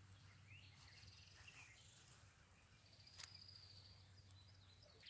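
Near silence: faint outdoor ambience with a few distant high chirps and trills, and a faint tick about three seconds in.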